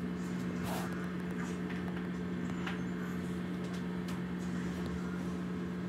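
A steady low hum, one strong tone with a few fainter ones above it, with faint scattered clicks and ticks over it.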